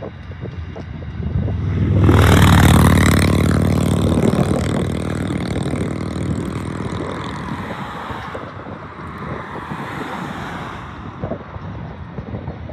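Freight train of wheat hopper wagons rolling past with a steady rumble. About two seconds in a loud rushing swell with a low hum comes up and fades away over the next several seconds.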